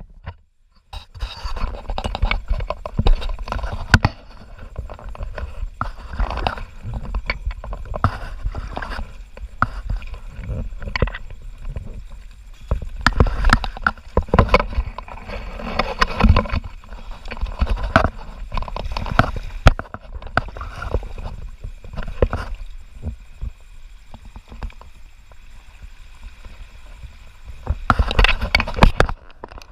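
River water splashing and gurgling against a plastic sit-on-top kayak in swift current, with irregular knocks and scrapes as the boat and paddle bump about. The knocks are most frequent near the end.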